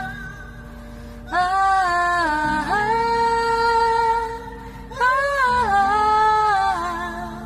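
A woman singing a slow Russian ballad in three long phrases of held notes, the first beginning about a second in, over a soft steady accompaniment.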